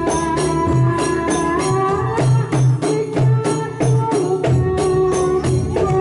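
Javanese Ndolalak folk music: hand drums and jingling percussion keep a steady, quick beat under held melody tones, with a woman singing into a microphone.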